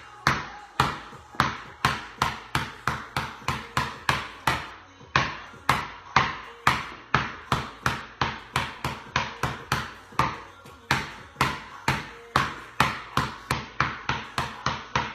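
Basketball dribbled on a bare concrete floor: a steady run of sharp bounces, about three a second, with a couple of brief gaps.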